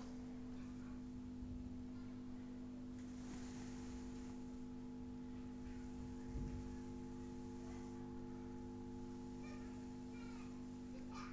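A steady hum made of a few fixed tones, with a few faint ticks and a soft knock about six seconds in.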